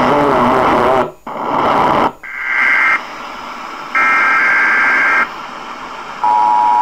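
Small radio speaker playing hiss and static, then two harsh buzzing data bursts of an Emergency Alert System header. Near the end comes the steady two-tone EAS attention signal, announcing an emergency broadcast.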